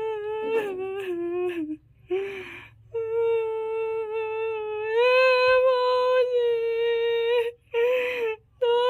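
A woman's voice wailing in long, held high notes, broken by sobbing gasps about two seconds in and again near the end: the ritual weeping lament of a bride's farewell.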